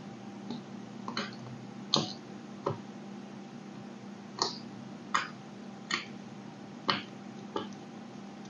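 Craft-knife blade slicing through packed kinetic sand, a crisp crunch with each cut: about eight cuts at uneven intervals, over a faint steady hum.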